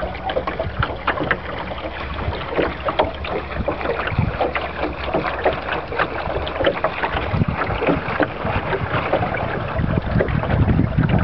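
Water splashing and lapping against the hull of a small boat in quick irregular slaps, with wind buffeting the microphone that grows louder near the end.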